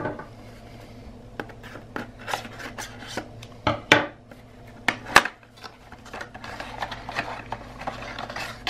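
Accessory packaging being opened by hand: rubbing and scraping with a string of sharp clicks and snaps, the loudest about four and five seconds in, then steadier rubbing near the end.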